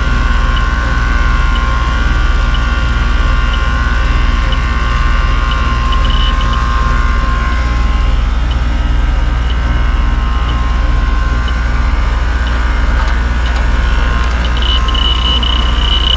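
Electronic refrigerant leak detector ticking and sounding a high-pitched tone that swells into a steady shriek near the end, picking up a refrigerant leak at the bottom of the heat pump's condenser coil. A steady low hum runs underneath.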